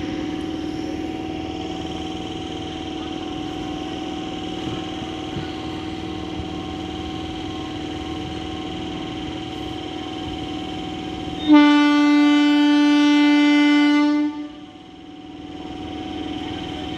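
Steady electrical hum from a standing EMU local train. A bit past the middle a train horn sounds one loud, steady blast of about three seconds, then cuts off and the hum comes back.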